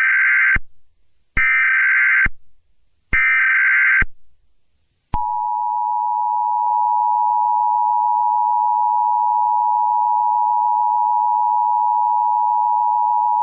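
Emergency Alert System SAME header: three bursts of warbling digital data tones, each about a second long. About a second later comes the EAS two-tone attention signal, a steady dual tone held for about eight seconds.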